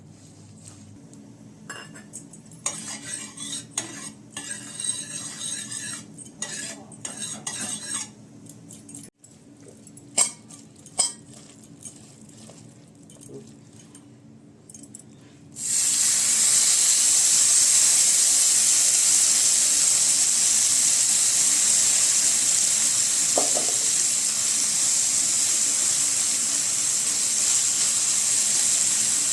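For about the first half, a utensil clinks and scrapes against a dish in scattered taps. About halfway through, a loud, steady sizzle starts suddenly as small fish go into hot oil in the pan and keep frying.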